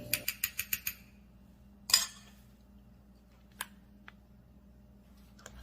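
Small clinks and clicks of a utensil against a glass mason jar: a quick run of about eight light taps in the first second, then two single clinks about two seconds apart.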